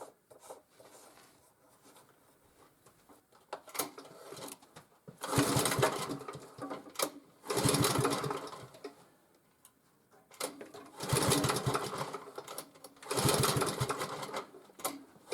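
Small four-stroke engine of an MTD motor-cultivator being pull-started: four recoil pulls, each a second and a half of rapid cranking, and the engine does not fire. The engine is hard-starting.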